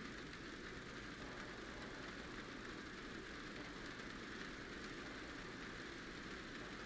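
Steady background rain, an even hiss of rainfall.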